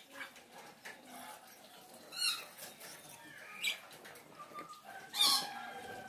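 Faint chicken and bird calls: scattered short chirps, the loudest about five seconds in, and a long held call beginning about four and a half seconds in.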